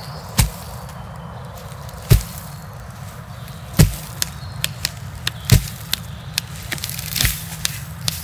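Hands striking a tree stump as a bass drum in a slow, steady beat, one deep thump about every 1.7 seconds. From about four seconds in, quicker, sharper clacks of a piece of bark clapped against the hand join in. Near the end a brief rustle comes in, from a branch swished against leaves.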